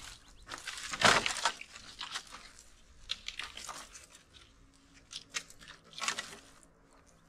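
Dry sticks clattering and crunching as an armful is dropped onto a woodpile, loudest about a second in, followed by lighter knocks and rustles as the sticks are shifted and stacked.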